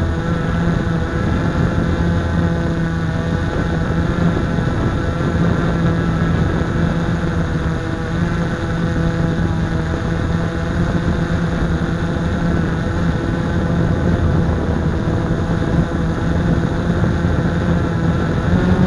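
Blade 350 QX quadcopter's four brushless motors and propellers buzzing steadily while it hovers, heard loud and close from the camera mounted on the drone itself.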